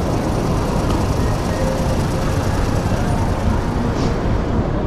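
Busy city street ambience: a steady rumble of traffic with passers-by around.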